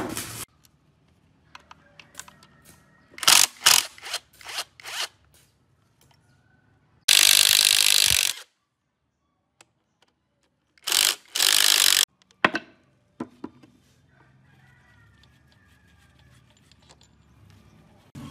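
Cordless drill-driver spinning bolts out of an old truck engine's crankcase: three short runs, the longest about seven seconds in and two briefer ones around eleven seconds. They are preceded by a handful of sharp metal knocks and clinks.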